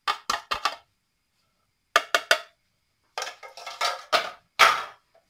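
A glass baking dish knocked repeatedly against the rim of a stainless steel pot to shake out the flour: sharp clinks in quick groups, then a longer stretch of clattering knocks.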